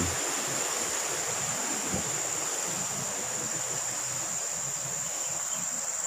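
Forest ambience: a steady, thin, high insect drone over an even hiss, with a single soft thump about two seconds in.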